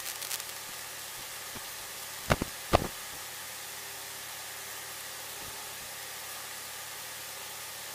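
Steady electronic hiss from the cockpit headset and radio audio, with two short clicks close together a little over two seconds in.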